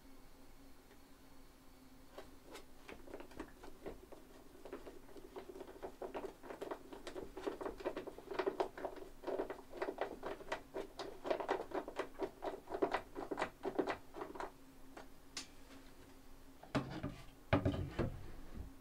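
Rapid series of small clicks and taps from hand tools as pine cupboard doors are fitted and hung, over a faint steady hum. A few heavier knocks come near the end.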